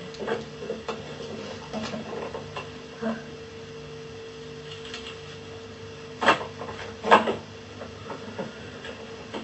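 Scattered light clicks and knocks over a steady hum, with two louder knocks about six and seven seconds in.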